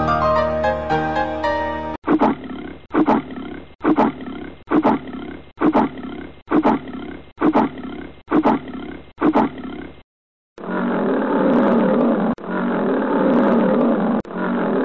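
Piano music briefly, then a cartoon lion snoring in regular strokes, about one a second, for some eight seconds. After a short pause comes a long lion roar, broken once about midway.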